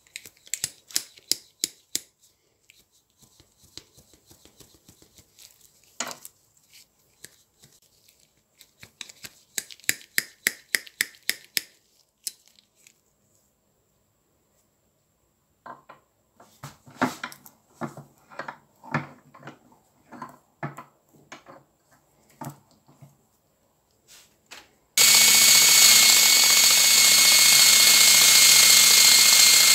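Short hand-worked scraping strokes on a rusted steel side cutter clamped in a vise, in three bursts. About 25 seconds in, a power tool with a brass wire wheel brush starts on the cutter's jaws and runs steadily and loudly with a high whine, brushing off the rust.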